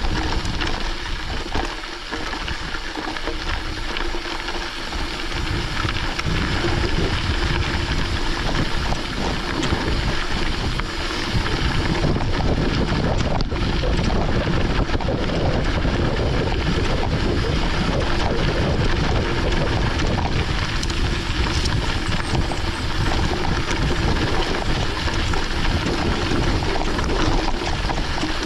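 Wind rushing over the microphone and mountain-bike tyres rolling on a forest road while riding, a steady rushing noise that gets louder about six seconds in.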